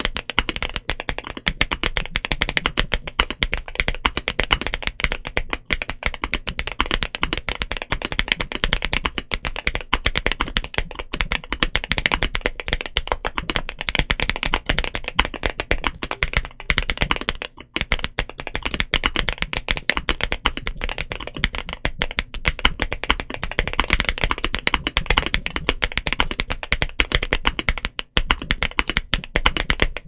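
Continuous fast typing on a Momoka Zoo65 mechanical keyboard fitted with Silver Bullet Morandi frankenswitches, an FR4 plate and PBT keycaps: a dense run of keystrokes, with brief pauses a little past halfway and near the end.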